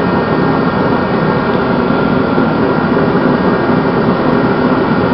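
Heatstar 125,000 BTU kerosene forced-air torpedo heater running: the burner firing and the fan blowing make a steady rush of air and flame, with a faint steady high tone on top. The heater is burning properly with its lid on.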